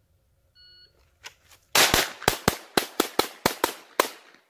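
Shot timer beep, then a rapid string of about ten pistol shots from a Glock 44 .22 LR, fired at an uneven pace over about two seconds.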